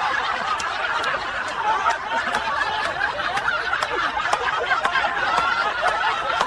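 Several people laughing and snickering together.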